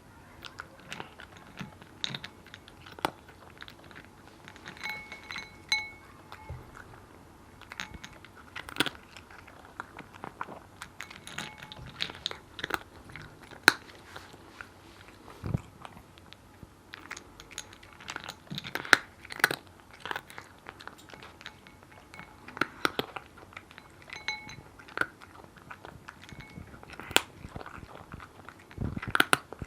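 A cat eating dry kibble, chewing with irregular sharp crunches.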